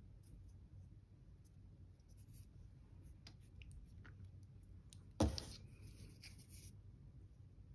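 Faint clicks and handling noise of fingers pressing soft air-dry clay, with one sharp knock about five seconds in, over a low steady hum.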